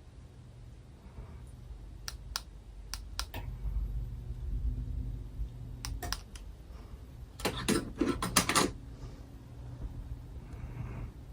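Hampton Bay Southwind V ceiling fan running with a low steady hum. Sharp clicks sound over it: a handful about two to three seconds in, then a dense rapid run of them near eight seconds.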